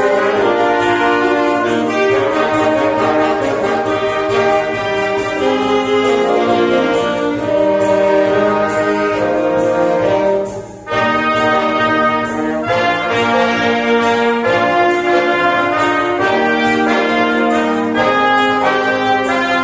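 Church wind band of saxophones, trumpets and trombone playing a hymn tune in sustained chords, with a brief break between phrases about eleven seconds in.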